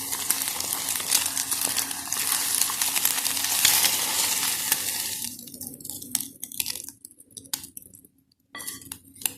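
Egg and Malabar nut leaf juice frying in ghee, sizzling in the hot pan while a spoon scrapes and stirs it. About five seconds in the sizzle stops, and a few light clinks and taps of the spoon against the dishes follow as the egg is moved into a bowl.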